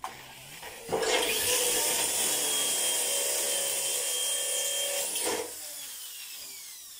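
A handheld electric power tool runs for about four seconds, then is switched off and winds down with a falling whine.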